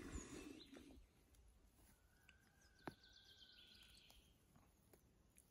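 Near silence, with a faint drawn-out whistle-like tone about two seconds in and a single soft click.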